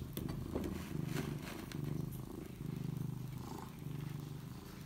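Domestic cat purring close by, swelling and fading about once a second, with a few light clicks.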